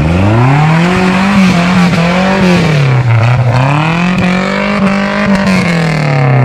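Off-road 4x4's engine revving hard under load while climbing a muddy slope: the pitch rises and holds, drops about three seconds in, rises and holds again, then starts to fall near the end.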